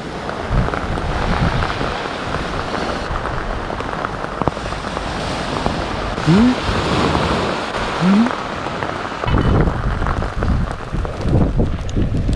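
Heavy rain pouring steadily, with many dull low thuds of drops striking a surface. Two short rising tones come through the rain, about six and eight seconds in.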